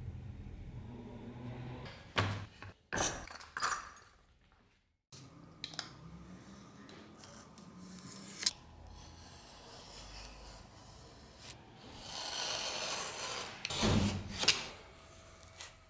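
Leather pieces handled and shifted on a workbench with a few sharp knocks, then a snap-off utility knife drawn through leather: a rasping cut near the end, followed by a couple of sharp clicks.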